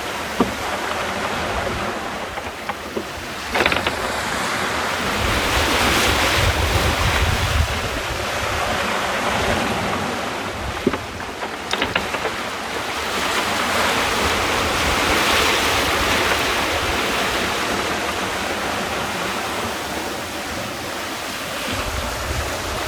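Water rushing along the hull of a small sailboat running fast under reefed sail, with wind buffeting the microphone; the rush swells and eases as the boat meets each wave, with a few sharp knocks or slaps of spray.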